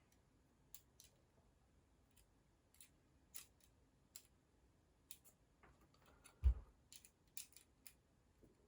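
Light, scattered clicks and taps of small metal construction-set parts, nuts and a tiny spanner being handled during assembly, with one dull thump about two-thirds of the way through.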